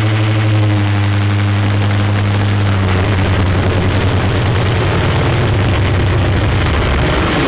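Harsh noise music from a live electronic performance: a loud, steady low droning hum that breaks up about three seconds in into a dense wall of grinding noise.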